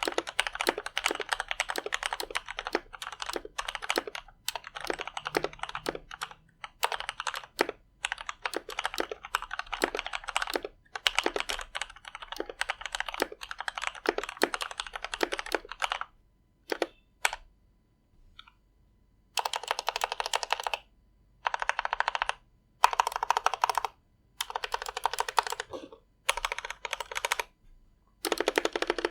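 ChuangXiang F87 mechanical keyboard with lubed Outemu GTMX Red linear switches being typed on: fast continuous typing for about the first half, then a few lone key presses, then short bursts of rapid keystrokes, each about a second long, with brief pauses between.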